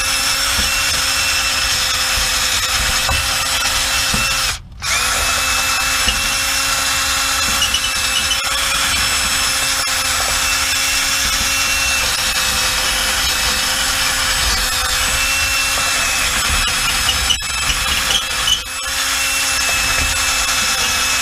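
Handheld power tool motor running steadily at one pitch while cleaning oily grime off the rear differential's pinion flange area. It cuts out for a moment about four and a half seconds in, then runs on.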